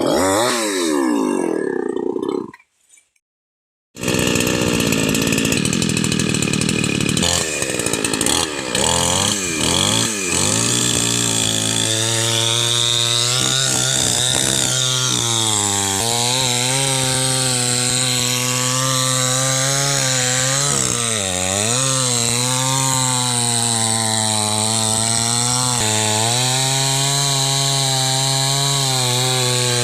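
Chainsaw running at high revs while cutting a palm tree trunk, its engine pitch swaying and dipping as the chain bites in. There is a brief silent gap near the start.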